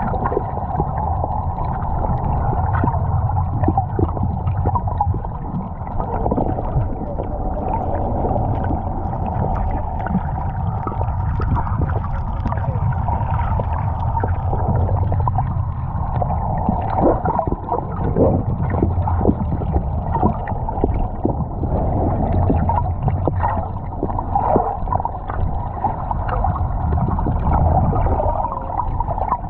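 Underwater sound heard through the water: a steady low rumble with an even hum above it and scattered faint clicks and crackles.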